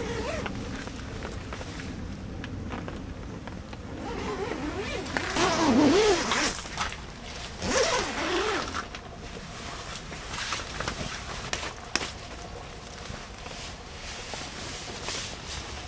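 A tent door zipper being pulled in several short runs, loudest from about five to eight seconds in, with scattered light clicks.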